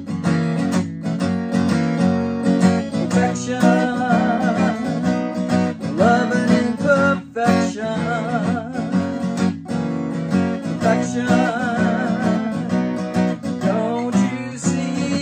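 Takamine acoustic guitar strummed in a steady rhythm, with a capo on the neck, and a woman's voice singing over it through the middle of the passage.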